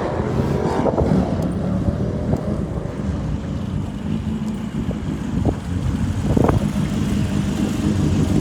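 A car engine running steadily at a low, even speed, getting slightly louder near the end.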